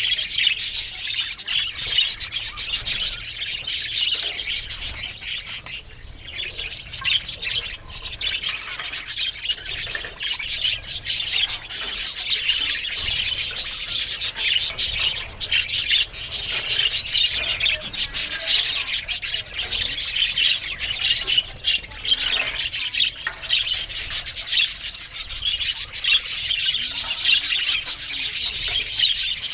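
A flock of budgerigars chattering without a break: a dense, steady mass of high chirps, squawks and warbles from many birds at once.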